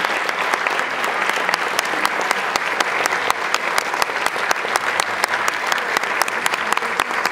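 Audience applauding: dense, steady clapping with no pause.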